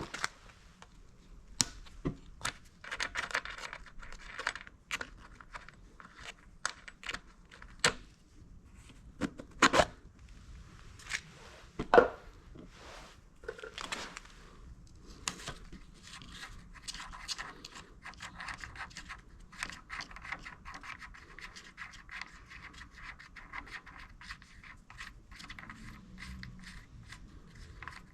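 Scraping and rubbing of objects being handled, broken by many sharp clicks and knocks, the loudest about twelve seconds in.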